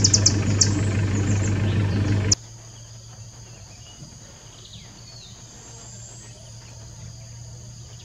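A vehicle engine idling with a steady low hum, with short sharp high chirps over it. About two seconds in it cuts off suddenly to a much quieter scene: a steady high insect-like drone and a faint bird call.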